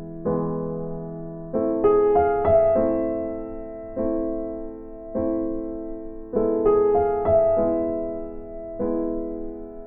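Soft background piano music: slow chords struck about once a second, each ringing and fading, with a few quick arpeggiated notes.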